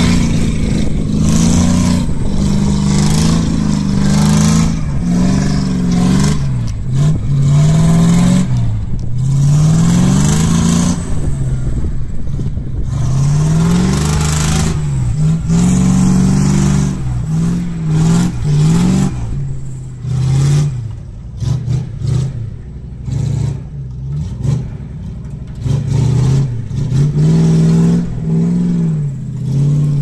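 Heavy off-road truck loaded with firewood grinding through soft mud, its engine revving up and down again and again under load, with the revs dropping away several times in the second half.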